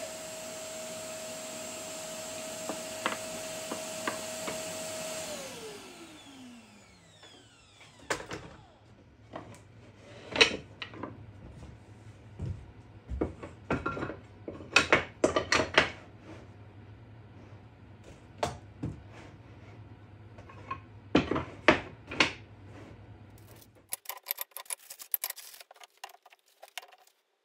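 Shop dust extractor running on after a track-saw cut, then switched off and winding down with a falling whine about five seconds in. After that come a series of sharp wooden knocks and clacks as hardwood strips are picked up and set down on the bench.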